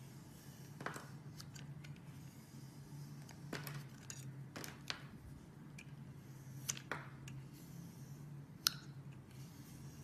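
Snap-off utility knife blade slicing thin curls off a bar of soap: a series of short, crisp cutting strokes, the sharpest near the end.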